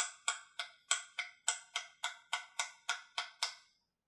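Light, evenly spaced taps of a soft-faced mallet on a wooden dowel held against the crankshaft of a Thunder Tiger Pro .46 glow engine, about three a second, seating the crankshaft fully in the crankcase. The tapping stops about three and a half seconds in.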